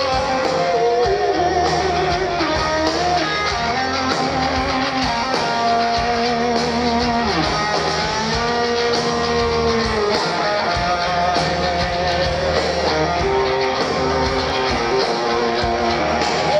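Rock band playing live, loud and steady: an electric guitar lead of held notes that bend up and down, over drums and bass.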